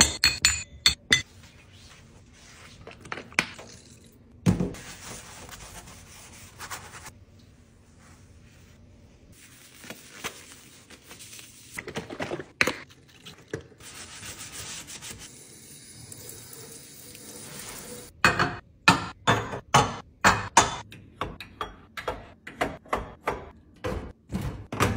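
Gas stove grates and burner caps being handled and scrubbed in a sink, with scattered knocks and clatters. A quick run of knocks comes near the end as the grates are set back on the cooktop.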